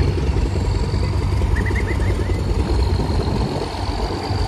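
Big single-cylinder vintage engine running with a slow dug-dug-dug beat, under heavy wind rumble on the microphone. A few quick high chirps come about two seconds in.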